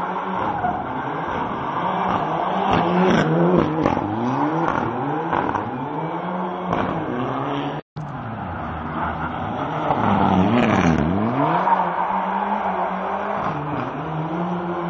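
Rally car engine revving hard and falling back again and again, its pitch rising and dropping as the car is driven sideways. The sound cuts out for an instant about eight seconds in.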